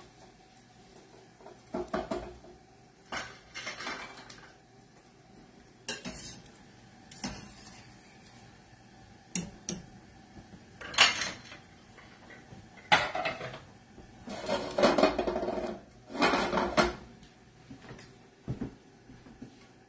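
Metal spoon clattering and scraping against a stainless steel pot and sauté pan in a dozen or so short bursts, as cooked gnocchi are scooped from the boiling water into the pan of butter and sage.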